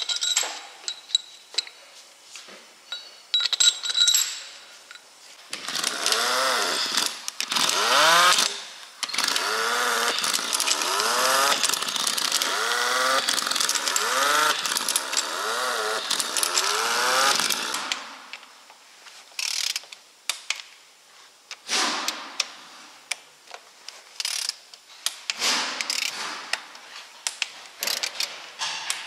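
Air-powered wrench running bolts into a Scania V8 cylinder head in repeated short bursts, spinning up and winding down about once a second. Later comes a series of sharp clicks and knocks from a hand wrench on the bolts.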